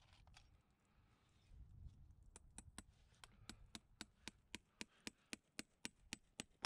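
Farrier's driving hammer tapping a horseshoe nail through a steel shoe into the hoof wall: quick, even taps, about four a second, starting about two seconds in.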